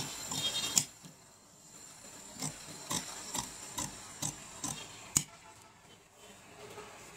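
Large steel tailor's shears snipping through woven coat fabric: a run of short crisp snips, about two or three a second, with a brief pause about a second in and one sharper click about five seconds in.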